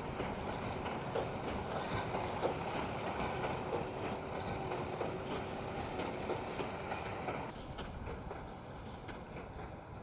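Tractor pulling a large square baler through straw, the engine running steadily under the clatter and knocking of the baler's mechanism. It grows quieter about three-quarters of the way through.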